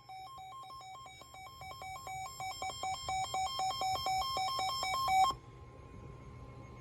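Weather alert radio sounding its electronic alarm for an incoming warning: a rapid beeping warble that alternates between two pitches several times a second, grows louder, and cuts off suddenly about five seconds in.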